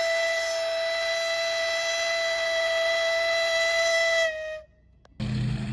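Steam traction engine's whistle blowing one long steady note. It sags slightly in pitch just before it cuts off about four and a half seconds in. After a brief silence, a low hum starts near the end.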